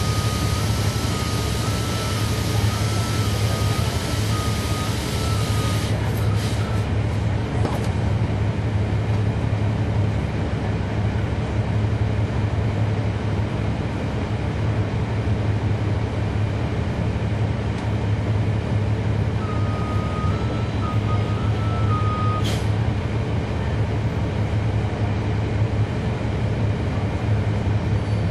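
Cummins ISL9 diesel engine of a 2011 NABI 40-foot transit bus running steadily, heard on board. There is a loud hiss of air for about the first six seconds, an electronic beep stepping between two pitches at the start and again a little after twenty seconds, and a few sharp clicks.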